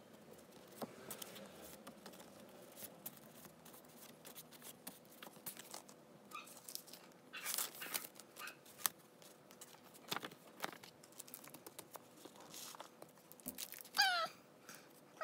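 Paper envelopes, photo prints and cards rustling, sliding and crinkling as they are handled, with scattered small clicks and short louder rustles. Near the end a cat meows once, its call falling slightly in pitch.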